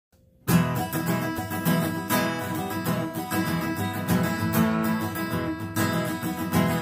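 Acoustic guitar strummed in chords, starting suddenly about half a second in after silence, with no singing yet.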